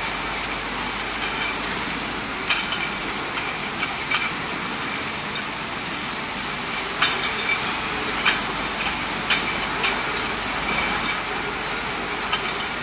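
Bottle decapping and washing machinery running: a steady mechanical hiss with irregular clinks of glass bottles knocking together, about one every second or two.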